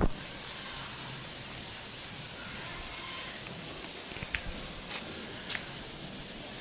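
Steady background hiss, with a few faint short high ticks about halfway through.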